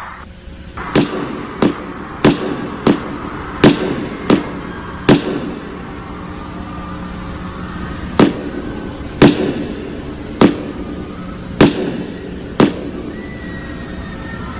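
About a dozen loud single footstep hits boomed through a stadium sound system and echoing around the arena, keeping time with a performer's slow walk across the stage. There are seven steps, a pause of a few seconds, then five more, over steady crowd noise.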